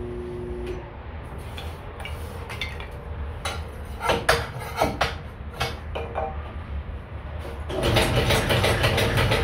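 A homemade kindling machine running with a low, steady motor hum, with a run of sharp wooden knocks as blocks are pushed through the splitter and sticks fall. Background music comes back near the end.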